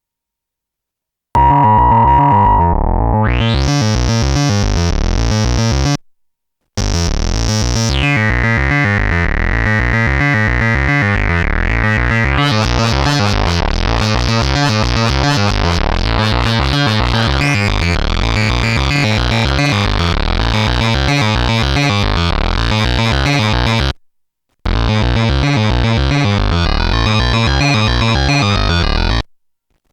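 A Eurorack synthesizer patch, a wavetable oscillator played through a resonant voltage-controlled filter, runs a repeating pulsing pattern while the filter cutoff is modulated. A resonant peak sweeps up about two seconds in and falls again about eight seconds in. The sound comes in three takes with brief silences between them.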